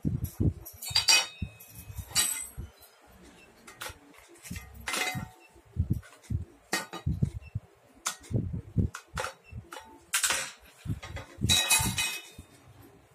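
Hand tools and small metal bike parts clinking as a balance bike is assembled: a wrench and bolts knocking against each other and the hub. Several sharp metallic clinks ring briefly, among softer dull knocks from handling the parts.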